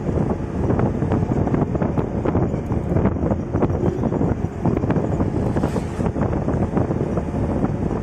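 Wind buffeting the phone's microphone from a moving vehicle: a steady, fluttering rumble.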